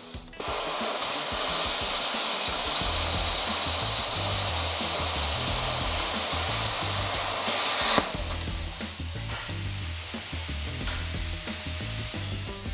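Hobart AirForce 27i plasma cutter cutting a 45-degree bevel in steel plate: the arc comes on suddenly about half a second in as a loud, steady hiss and cuts off abruptly about 8 seconds in.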